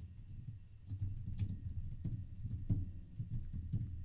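Typing on a computer keyboard: a quick, irregular run of keystrokes as a command is entered.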